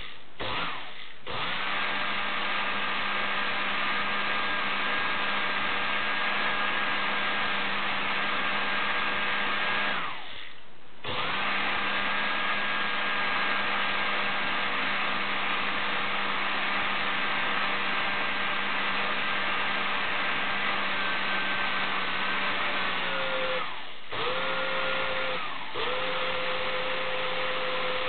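Portable air compressor's brushed electric motor running after a failed repair of its damaged commutator, with a steady whine and hum over a rushing noise while the brushes arc at the commutator. It drops out for about a second around ten seconds in, sags in pitch and stops a little past twenty seconds, then restarts in shorter runs with two brief cut-outs near the end.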